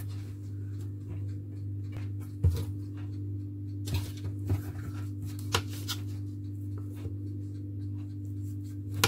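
Knife slicing through a rolled log of puff-pastry dough and tapping on a marble countertop: a few short sharp knocks, the loudest about two and a half seconds in, over a steady low hum.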